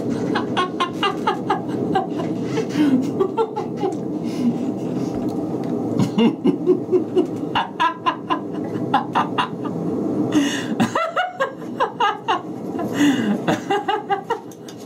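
A man laughing hard in runs of quick, breathy bursts, over a steady low rushing noise.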